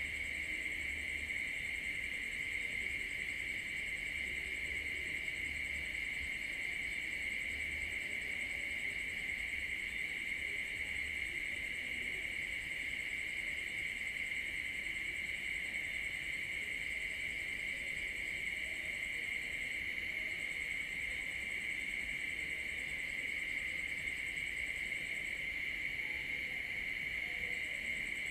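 Night insect chorus of crickets trilling steadily and unbroken, with a higher-pitched trill that drops out briefly about two-thirds of the way through and again near the end.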